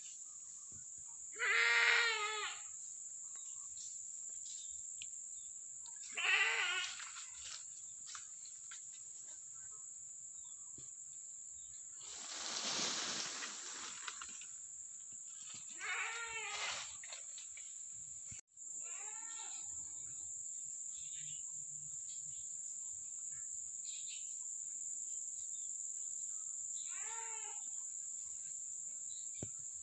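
Several animal calls, each about a second long with a wavering pitch, over a steady high-pitched insect drone. A brief rushing noise comes about halfway through.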